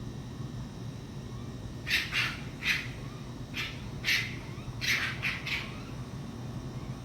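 A run of about eight short, harsh animal calls in quick succession, starting about two seconds in and stopping a little past the middle, over a steady low background rumble.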